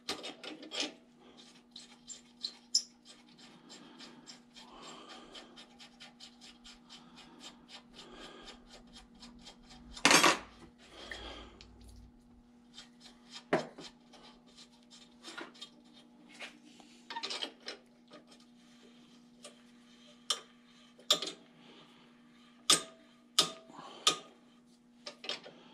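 Rapid small metal clicks and rasping as a wrench works a rusty nut along a tractor brake rod clamped in a bench vise. About ten seconds in, a brief spray from an aerosol can of penetrating oil, then scattered louder metal clicks and knocks as the wrench goes back on.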